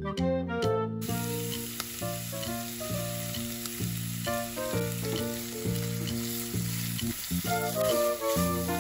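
Chunks of goat meat sizzling in hot oil and fried spice paste in a wok, starting about a second in, and stirred with a spatula near the end. Background music with a steady run of notes plays over it.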